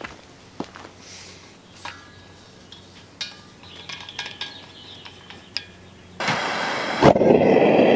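Small clicks as the propane tank's regulator valve is handled, then gas suddenly hissing about six seconds in. A second later the propane forge burner lights with a sharp onset and burns with a steady, louder rushing noise.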